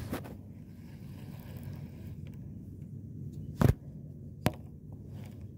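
Baitcasting reel retrieving line, a steady low whir, with a sharp click about three and a half seconds in and a lighter one a second later.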